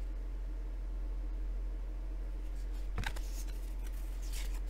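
Stiff cardboard lobby cards being handled: a sharp click about three seconds in, then a couple of light rustles, over a steady low hum.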